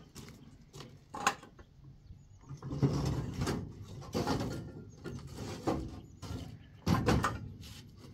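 Irregular knocks and scraping, with sharper knocks about a second in and about seven seconds in.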